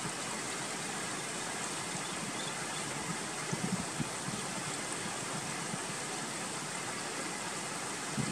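Steady rushing of a stream flowing over rocks, with a few brief low thumps a little over three seconds in.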